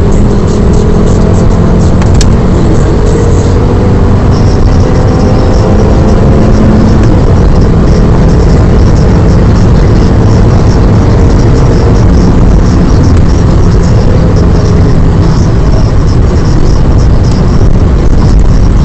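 Fiat Stilo Abarth's 2.4-litre five-cylinder engine pulling at speed on a race track, heard from inside the cabin over heavy road and wind noise. The sound is loud and steady, with slow rises and falls in engine pitch, through a mobile phone's microphone.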